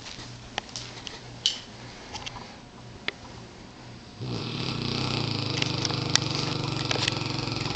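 Mastiff snoring in its sleep: quiet breathing with a few faint clicks, then about four seconds in, one long, loud snore that lasts nearly to the end.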